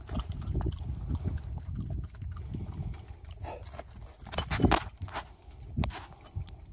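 A dog lapping up water, a quick run of wet clicking laps with a few louder splashy strokes a little after the middle.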